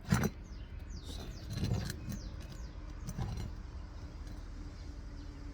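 A roof snake being worked under 3-tab asphalt shingles to get at the nails: three short knocks and scrapes of the metal bar, about a second and a half apart, with light metallic jingling. A bird chirps a quick run of falling notes in the first two seconds.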